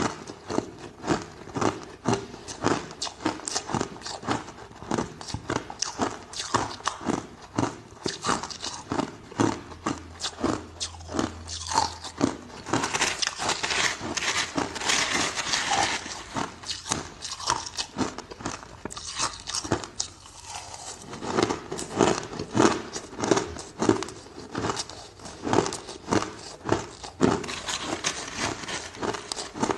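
Ice being bitten and chewed close to the microphone: crisp crunches, about two to three a second, with a denser stretch of grinding crunch in the middle and a short lull after it.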